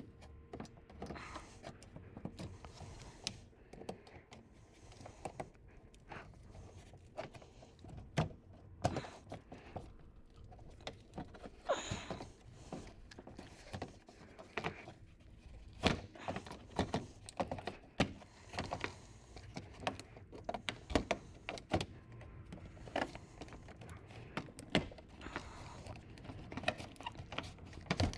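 Razor knife cutting and scraping through a plastic underbody panel, with irregular clicks, short scrapes and a few sharper snaps as the plastic is flexed and trimmed.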